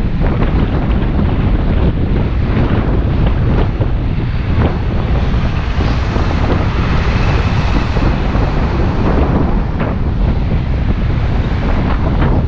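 Heavy wind buffeting the microphone throughout, with a swell of road noise from a vehicle passing about halfway through.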